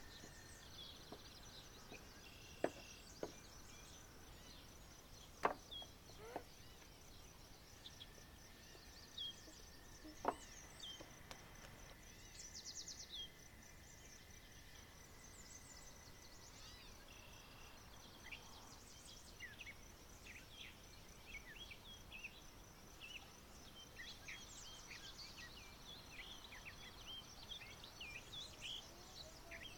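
Faint outdoor ambience of birds chirping and a steady high insect drone, with a few sharp knocks in the first ten seconds or so.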